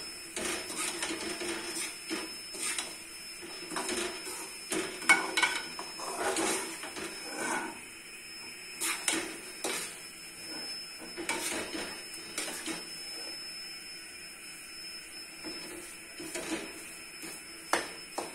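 Long metal spoon scraping and knocking against a metal wok while stirring and roasting semolina in ghee for halwa, with irregular clinks and scrapes.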